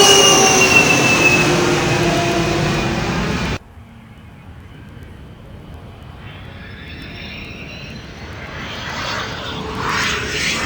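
Large cargo aircraft engines passing loud, their tones falling in pitch, then an abrupt cut about three and a half seconds in to a quieter aircraft engine sound that grows louder toward the end.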